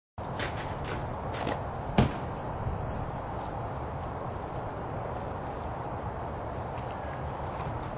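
A few sharp knocks or steps over a steady background noise, the loudest about two seconds in.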